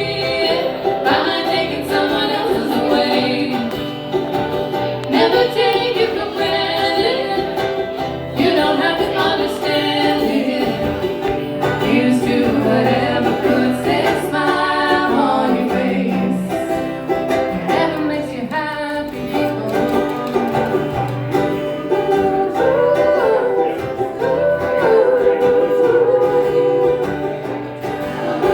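Several voices singing a song together in close harmony, over plucked string accompaniment.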